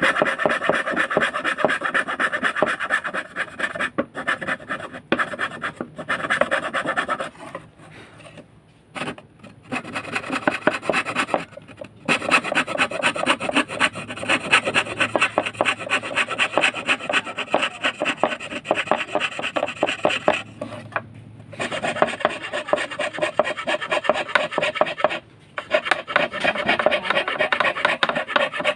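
Hand fretsaw cutting wood in fast, short, rasping strokes, stopping briefly a few times.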